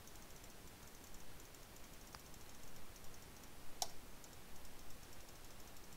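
Faint clicking of a computer mouse as a spin-box value is stepped up: a quick run of small ticks, with two sharper clicks about two seconds in and just before four seconds.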